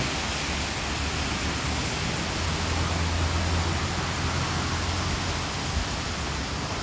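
Low steady rumble of the approaching train's Alsthom diesel locomotive with a Caterpillar engine, heard at a distance under a steady rushing noise, the rumble a little stronger about halfway through.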